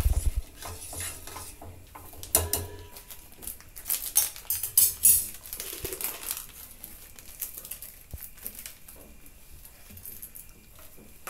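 Metal utensil clinking and knocking against a stainless steel saucepan as sugar syrup is stirred, with scattered clinks, the densest in the first half.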